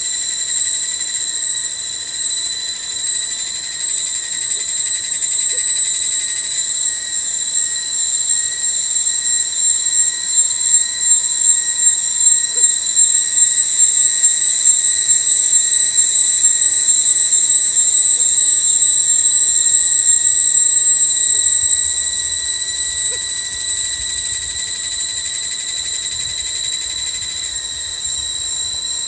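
Loud, steady chorus of cicadas: a high, pulsing whine held without a break, its texture shifting about seven seconds in and again near the end.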